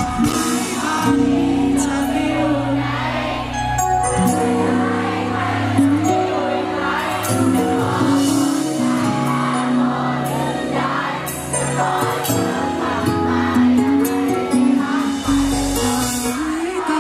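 Live band playing a pop song, with a singer's lead vocal through the microphone over a steady bass line and cymbals.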